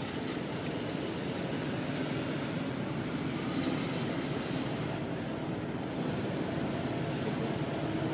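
Steady hum of a vehicle engine running, with no distinct events in it.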